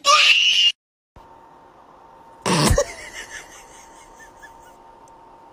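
A kitten's short, high, squeaky cry with its mouth wide open, cut off abruptly. About two and a half seconds in, one short loud burst over a faint steady hum.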